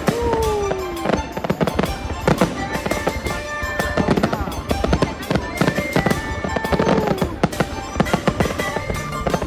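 Fireworks going off in rapid, irregular bangs and crackles, with music playing over them. A falling tone sweeps down near the start and again about seven seconds in.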